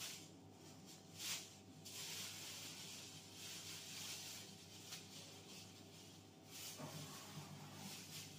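Thin plastic bags crinkling and rustling faintly in irregular bursts as food is handled and packed into them.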